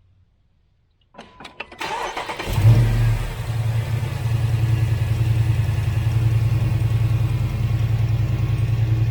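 The 392 Hemi V8 in a 2017 Jeep Wrangler JK is cranked for about a second and catches with a short rev about two and a half seconds in, then settles into a steady idle.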